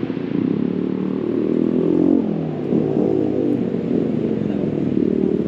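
A motor vehicle's engine running, its pitch rising and falling several times.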